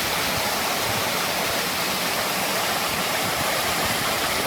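Waterfall in full flow, swollen with runoff, a steady, even rush of falling water.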